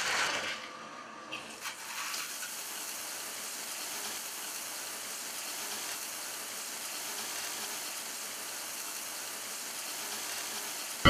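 A shower valve handle is turned, with a few short knocks in the first two seconds, then shower spray runs as a steady hiss.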